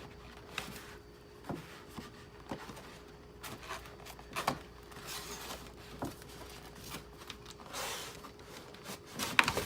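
Cardboard packaging being handled: scattered rubs, scrapes and light knocks as an inner box is worked out of the outer box, with a sharper knock near the end.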